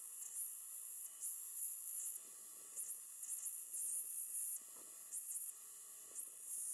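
Belt grinder sanding the edge of a nickel silver knife guard: a thin, high hiss that comes and goes in short swells.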